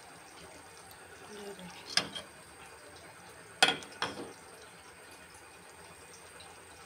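Metal ladle knocking against a steel cooking pot: three sharp clinks about two, three and a half and four seconds in, the middle one the loudest, over a faint steady hiss.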